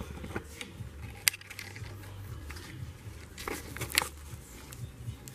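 Handling noise: scattered sharp clicks and knocks over a low hum, the two loudest about a second in and near four seconds in.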